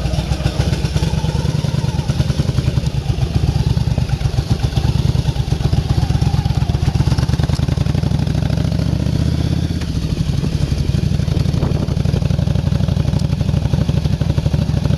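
Yamaha 1100 custom's V-twin engine running steadily, freshly started and back running after sitting for years.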